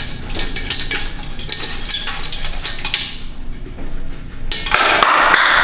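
Hands patting and rubbing in a stainless-steel gym chalk bowl, with a run of clinks and knocks against the metal.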